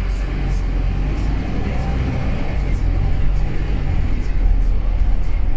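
Route bus under way: a steady low engine drone with road noise, slowly growing a little louder.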